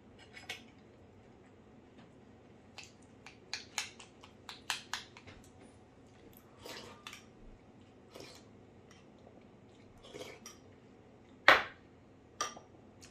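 A metal spoon clinking and tapping against a ceramic bowl while eating: a quick run of sharp clinks about three seconds in, softer, longer sounds in between, and one loud clink near the end.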